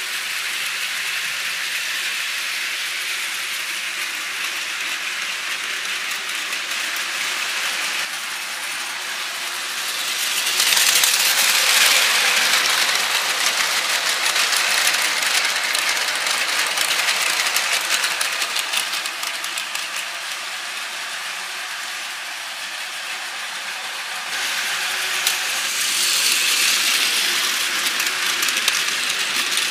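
Battery-powered Plarail toy trains running on plastic track: the small motor gearboxes whirring and the wheels rattling along the track. It grows louder for several seconds as a train runs close by, and the sound changes abruptly twice.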